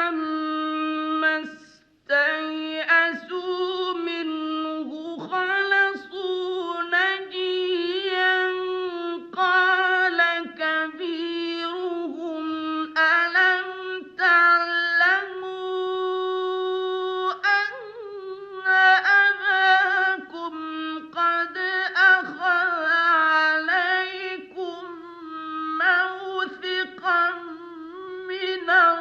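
A man's high voice in melodic mujawwad Quran recitation, holding long, ornamented notes with small pitch turns. There is a brief break for breath about two seconds in.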